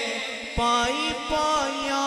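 Male naat reciter singing a devotional naat through a microphone and PA, an ornamented, wavering melody over a steady held low tone, with short low thumps beneath. The sung line comes back in strongly about half a second in.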